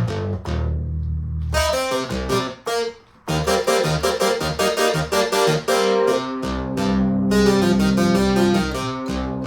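Oberheim Matrix 12 analog polyphonic synthesizer being played after repair, running stable and sounding very clean. It plays a keyboard-like patch of sharply struck notes that die away, over held bass notes, with a brief pause about three seconds in.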